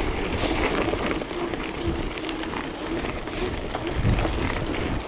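Bicycle rolling over rough off-road ground: a steady crackle and rattle of tyres with small scattered clicks, and wind buffeting the microphone.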